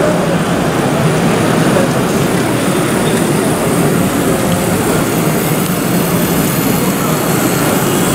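Steady background din of a busy exhibition hall, an even wash of noise with no distinct events.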